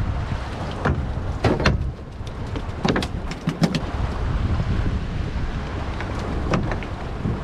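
Wind buffeting the microphone and water washing against a small fishing boat, broken by several sharp clicks and knocks.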